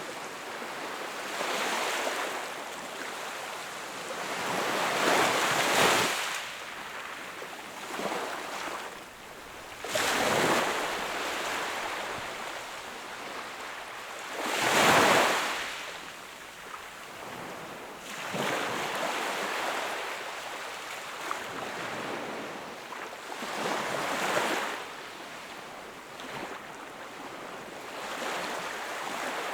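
Small sea waves breaking and washing onto the shore, each swelling and fading every few seconds, with the strongest breaks a quarter and half of the way through.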